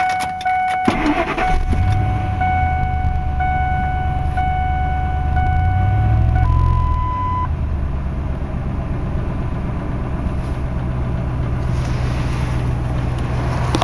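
2000 Ford F150 pickup's engine starting about a second in and then idling steadily, with a short rise in speed around the middle. The cab's warning chime repeats until about halfway, then gives one longer, higher tone. The engine is a bad one, which the owner says smokes and has water in its oil.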